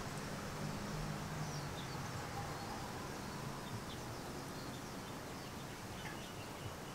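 Quiet steady background hiss, with a faint low hum in the first few seconds and a few faint, short high chirps scattered through.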